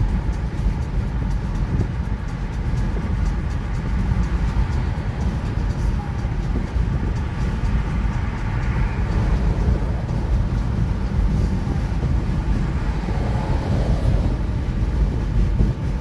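Steady road noise of a car cruising at highway speed, heard inside the cabin: a constant low rumble of tyres and engine.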